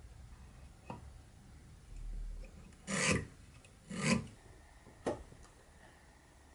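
Marking knife drawn along a square across a wooden rail to score shoulder lines: two short scratching strokes about a second apart, with a few light taps of the tools on the wood.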